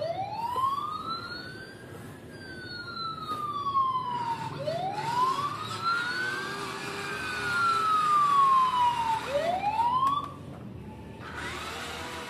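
Electronic wail siren from the Huina 1561 RC fire truck's sound module: a tone that rises and then slowly falls, repeating about every four and a half seconds. After two full cycles a third rise cuts off about ten seconds in.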